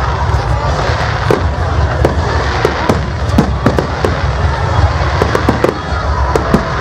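Fireworks display: rapid crackling and many sharp bangs, several a second, over a continuous low rumble.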